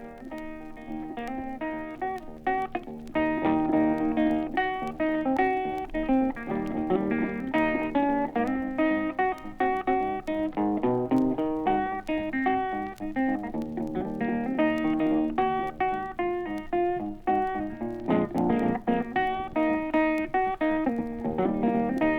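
Solo blues guitar playing an instrumental introduction to a song: picked single-note runs and chords over a repeating bass line. It rises out of the quiet gap between tracks over the first few seconds.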